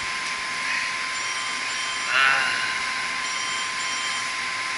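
Steady hiss and high whine of running equipment in a pump room, with one short pitched squeak about two seconds in.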